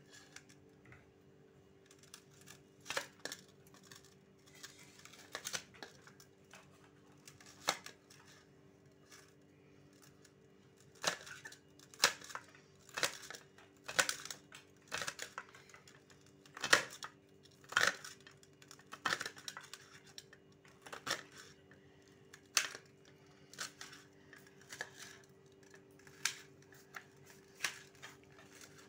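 Kitchen knife slicing red onion over a stainless steel plate: irregular crisp cuts and clicks of the blade, some against the plate. The cuts are sparse at first and come quicker from about eleven seconds in.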